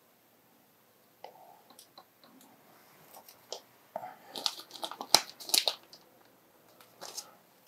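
Hare's ear dubbing being pulled from its dispenser and worked between the fingertips: a run of dry crackling and rustling with small clicks, thickest and loudest in the middle.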